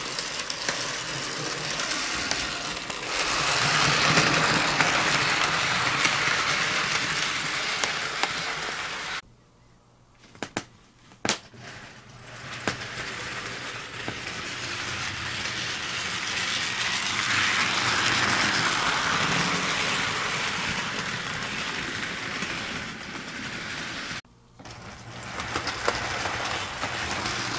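HO-scale model train running on the layout's track: a steady whir and rattle of motor and wheels on the rails. It cuts out twice, once for about a second with a few sharp clicks just after, and once very briefly near the end.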